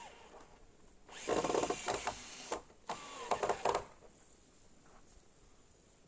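A small power tool running in two short bursts, each a second or so long, with a motor whine.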